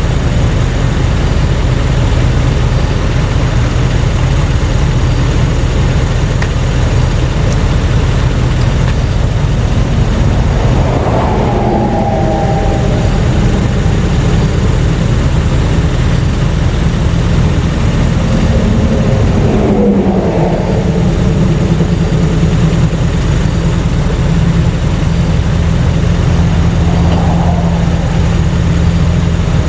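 Interstate traffic passing close by, a continuous rush of tyre and engine noise with a steady low engine hum underneath. Three louder vehicles go by, about a third of the way in, two-thirds in and near the end, each dropping in pitch as it passes.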